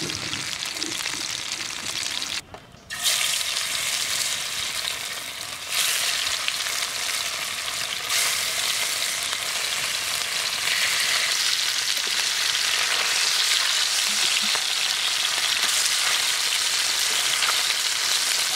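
Tilapia pieces sizzling as they shallow-fry in hot oil in a pan: a steady, loud crackling hiss. The sound breaks off for about half a second roughly two and a half seconds in.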